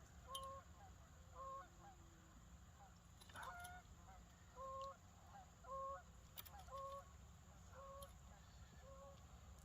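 Geese honking faintly, short single honks repeated about once a second.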